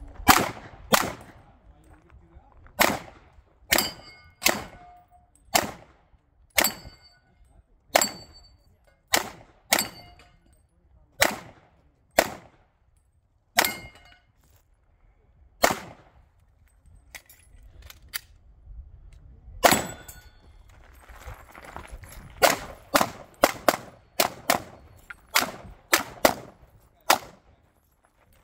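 Pistol shots, about thirty in all: spaced roughly a second apart at first, then after a pause of about four seconds, fast strings of shots close together. Some shots are followed by the short ring of a hit steel target.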